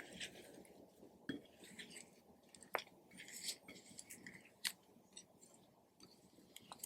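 Clear slime being kneaded and stretched by hand: faint sticky crackling with a few sharp pops as it pulls apart and presses together.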